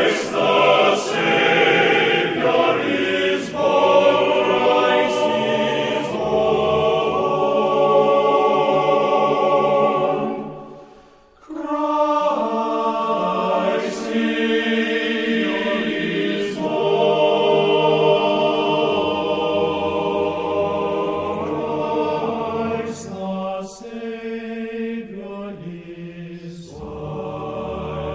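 Background choral music: a choir singing slow, held chords. It fades almost to silence about ten seconds in, then starts again.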